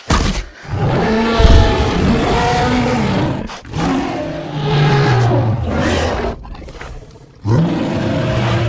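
Custom Indoraptor roar sound effects: a short sharp burst, then three long pitched roars that bend up and down in pitch.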